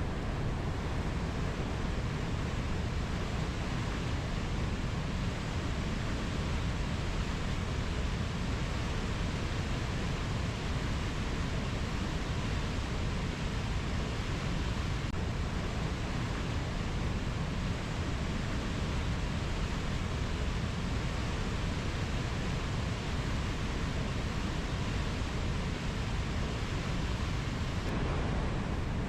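Steady, even rushing noise of a rainforest ambience, with no distinct bird or insect calls standing out and no changes in level.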